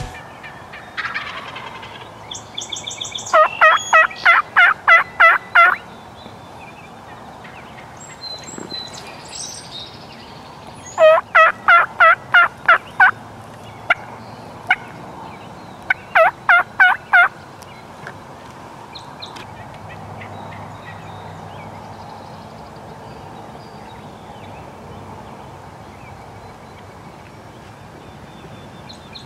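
Wild turkey calling: three runs of about seven loud, evenly paced notes each, several seconds apart, over a faint outdoor background.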